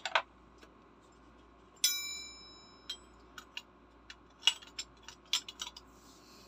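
Metal wrenches and fittings clinking and tapping as they are handled. One sharp ringing clink about two seconds in, then a run of small clicks and taps as a wrench is fitted to the air regulator's brass fitting.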